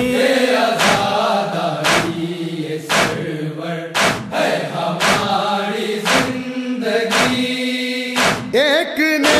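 Male voices chanting a Shia noha (lamentation) over a regular slap of chest-beating matam, about one strike a second.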